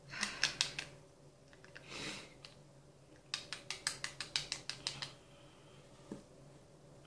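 Makeup items being handled: two quick runs of light clicking taps, the second lasting nearly two seconds at about eight taps a second, with a short soft rustle between them and a single click near the end.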